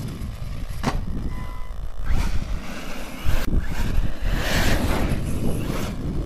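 Wind buffeting the microphone, with an Arrma Nero 4WD BLX RC monster truck's brushless electric motor running and its tyres on gravel, growing louder from about two seconds in as it drives close past and fading near the end. A sharp knock about three and a half seconds in.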